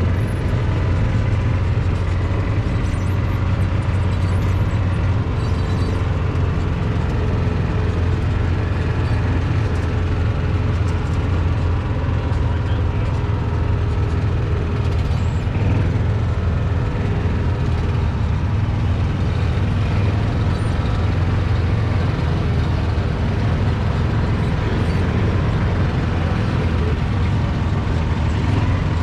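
Steady low engine rumble of a slow-moving vehicle, with a faint steady hum over it.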